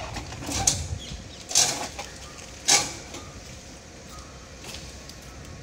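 Motorcycle shipping crate and packaging being handled, with three short, sharp noises about a second apart over a low background.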